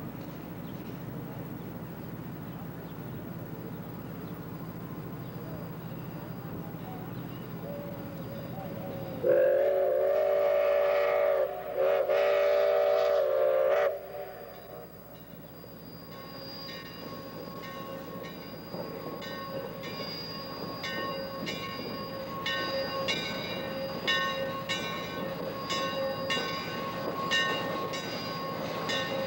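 1896 Cooke 4-6-0 steam locomotive No. 2248 rumbling past, then sounding two long whistle blasts of about two seconds each, about nine seconds in. After that its bell rings over and over in a steady rhythm as it rolls into the station.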